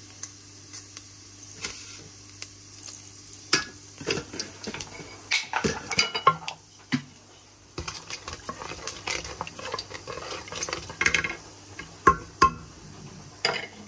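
A spoon clinking and scraping irregularly against a cooking pot, over a light sizzle of spices frying in hot oil.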